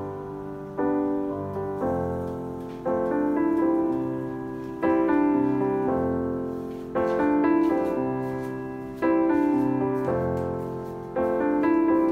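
Background piano music: a slow piece with notes and chords struck every second or two and left to fade.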